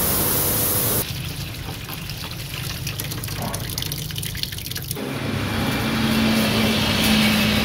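A loud hiss for about the first second. Then dark liquid with small round pellets is poured from a metal pot into a plastic strainer basket, with a patter of many small clicks. Near the end comes a steady hum with a low held tone.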